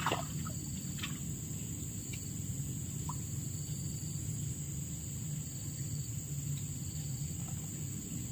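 Steady high-pitched chirring of crickets or other insects over a low, even background rumble. A short tap right at the start is the loudest moment, and a few fainter ticks follow in the next few seconds.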